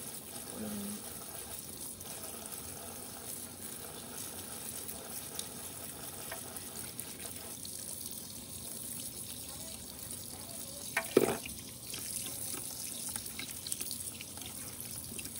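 Tap water running steadily into a stainless steel sink while pinfish are scaled with a knife over a plastic colander. A single sharp knock about eleven seconds in is the loudest sound.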